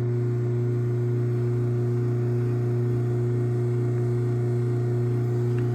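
Craftsman garage door opener motor running steadily with a constant hum, driving the door closed after the keypad's enter button is pressed.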